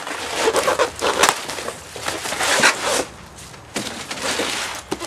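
A cardboard box sliding out of a cardboard shipping carton, with cardboard scraping and rustling in several irregular bursts that are loudest in the first few seconds.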